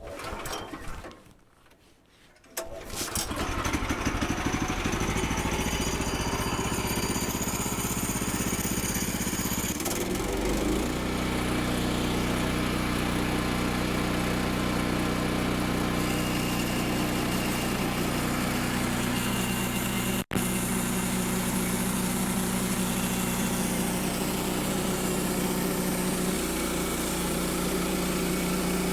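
Woodland Mills portable bandsaw mill's small gasoline engine running steadily as the blade saws through a log. The engine comes in after a short pause near the start, and its note shifts about ten seconds in.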